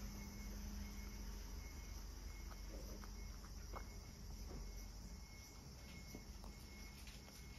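Cat eating small pieces of carrot from a bowl: faint, irregular clicks of chewing and licking over a low steady hum.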